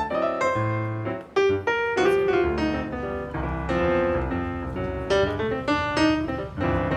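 Background piano music, notes played in a flowing run over lower chords.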